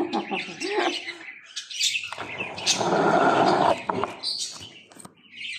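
Rubbing and rustling of a phone being handled and moved, loudest in the middle, with short high chirping sounds around it.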